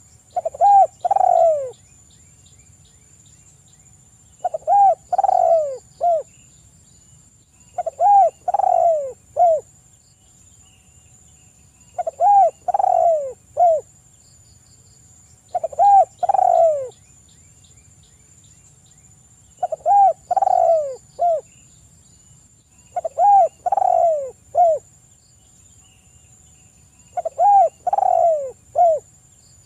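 Spotted dove cooing: eight repeated call phrases, one every three to four seconds, each a quick run of three or four coos.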